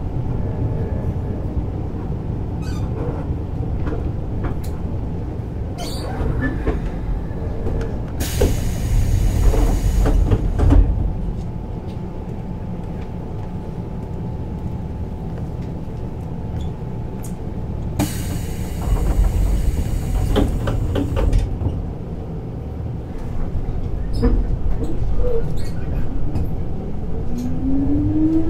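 Inside a Keisei 3600 series electric commuter train: a steady low rumble with scattered clicks and knocks, and two loud stretches of noise lasting about three seconds each. Near the end a motor whine rises in pitch as the train accelerates.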